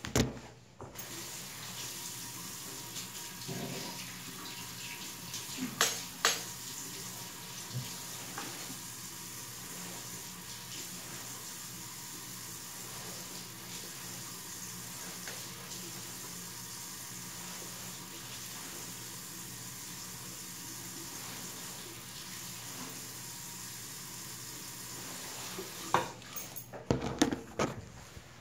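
Water running steadily from a bathroom sink tap, with a couple of sharp knocks about six seconds in. Near the end the water stops and brief knocks and rustling follow.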